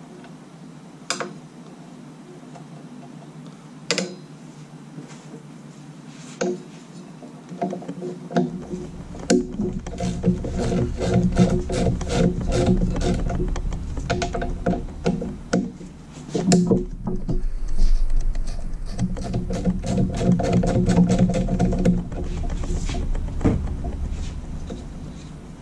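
A few single sharp metal clicks, then from about eight seconds in a hand socket ratchet clicking rapidly in long runs over a low steady hum, with a short break in the middle. The ratchet is loosening the 19 mm nuts on the main bearing brace of a Jeep 4.0 inline-six.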